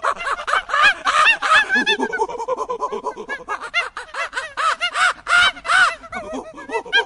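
A flock of birds calling together: many short rising-and-falling calls, several a second, overlapping throughout.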